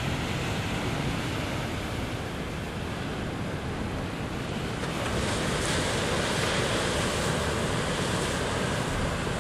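Ocean surf breaking and washing in, a steady rushing roar that swells slightly about halfway through, with wind buffeting the microphone.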